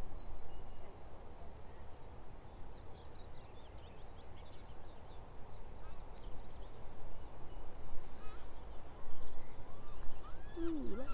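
Small birds singing in short high chirps over a low steady rumble, with a louder, lower call near the end.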